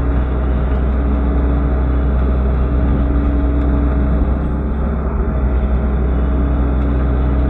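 Excavator's diesel engine running steadily with a strong low hum.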